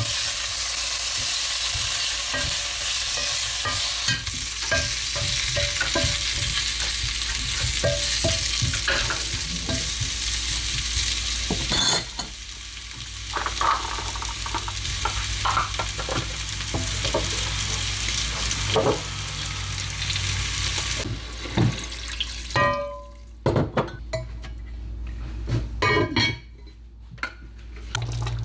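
Pork belly chunks sizzling as they sear in a cast-iron pot, with metal tongs clicking against the pot as the pieces are turned. About halfway through the sizzle drops and separate clinks and knocks of tongs on the pot take over.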